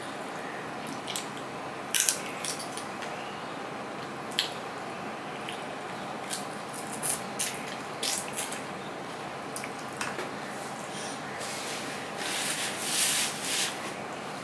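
Eating rice and curry by hand: wet squishing as fingers mix the food on a steel plate, and chewing mouth sounds. A few sharp clicks are scattered through it, with a longer run of wet noise near the end.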